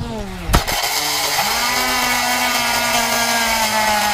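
Quadcopter drone's motors just after a crash. A falling whine and a thump come about half a second in, then the motors whine steadily at one pitch while the drone lies upside down.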